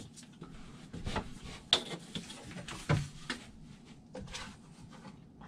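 Scattered light knocks, clicks and rubbing from the sections of an upholstered reclining loveseat being pushed and fitted together by hand, with a couple of sharper knocks about two and three seconds in.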